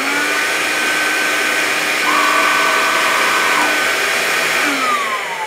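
Vax Life cordless upright vacuum cleaner's motor running at speed with a steady high whine. A second, lower whine joins about two seconds in and drops out a second and a half later. Near the end the vacuum is switched off, and the whine glides down as the motor spins down.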